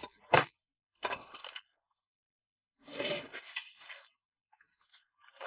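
Handling of a cardboard box of crimping tools: rustling of paper and plastic bags in two short spells, with a few small clicks.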